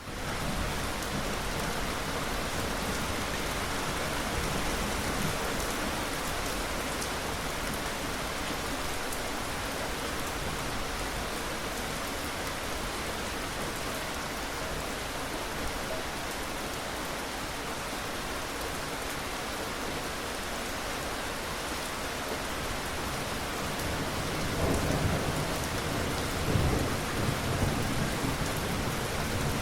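Steady rain falling in an even hiss, with a low rumble of thunder rolling in about three quarters of the way through.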